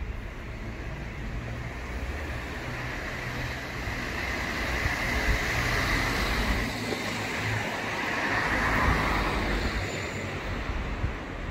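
Road traffic on a town street: vehicle engine and tyre noise swelling as cars pass, loudest around the middle and again about two thirds of the way through, easing off near the end.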